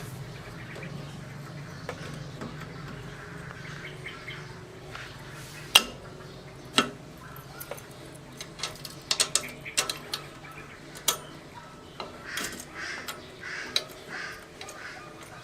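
Sharp metallic clicks and taps of tools and parts handled while fitting the sprocket nuts to a motorcycle's rear hub: two loud knocks about six and seven seconds in, then scattered lighter clinks in quick runs, over a steady low hum.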